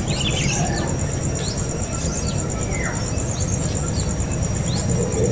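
Birds chirping in short, falling notes, several a second and scattered, over a steady high-pitched pulsing insect trill and a low rumbling noise.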